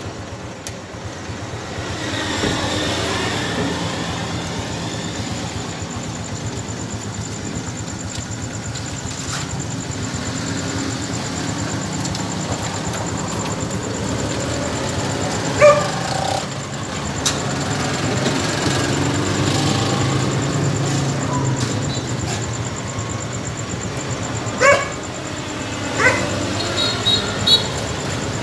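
Steady street traffic with vehicles passing, and a dog barking in short, sharp barks, once around the middle and several times near the end.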